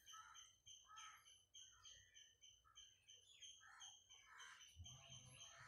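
Near silence with faint, regular high chirps, about three a second.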